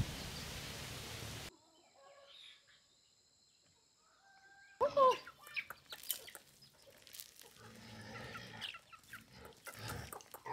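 A flock of free-range chickens clucking and calling as they crowd round to be fed, starting about halfway in. Before that, a steady outdoor hiss cuts off a second and a half in, leaving a short near-quiet stretch.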